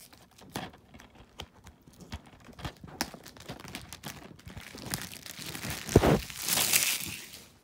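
Plastic-wrapped DVD case being handled and picked open: scattered clicks and crinkles, a knock about six seconds in, then a short burst of crinkling, tearing plastic.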